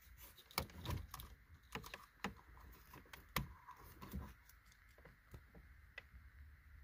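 Faint, scattered light clicks and taps from a flashlight and the wires of a dashboard wiring harness being handled. The clicks are frequent for about the first four seconds, then thin out to a few.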